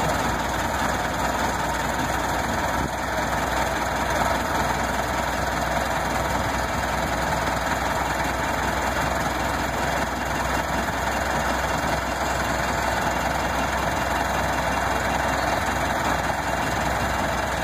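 1913 Studebaker's engine idling steadily.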